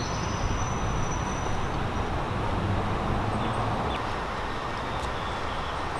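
Steady outdoor background rumble, with a faint thin high tone during the first couple of seconds.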